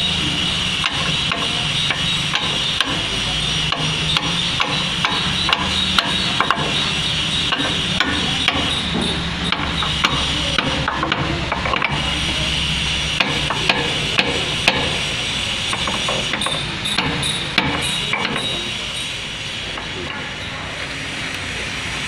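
Irregular sharp metallic taps and clicks from hand tools working on the piston of a concrete pump's main hydraulic cylinder during a seal change, over a steady mechanical hum and hiss. The taps stop a few seconds before the end.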